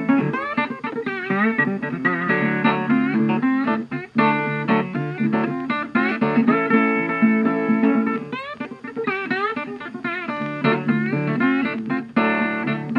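Background music: a guitar tune with notes that bend and slide in pitch.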